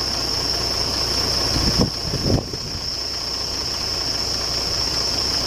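Boom truck's engine idling steadily, with a constant high-pitched whine over it and a couple of short sounds about two seconds in.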